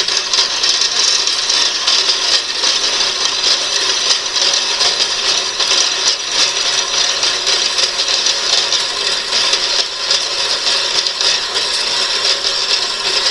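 Small power saw cutting through metal stock, a steady harsh high-pitched noise that runs without a break.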